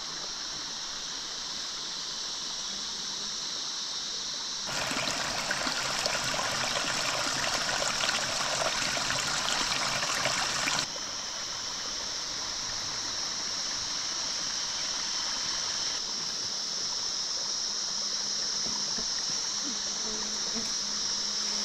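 Small forest stream trickling and splashing over rocks, loud and close for about six seconds in the middle, starting and stopping abruptly; a steady high-pitched hiss runs underneath the rest of the time.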